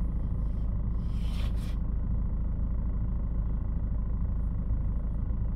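Steady low rumble of the car's 2.2-litre diesel engine idling, heard from inside the cabin.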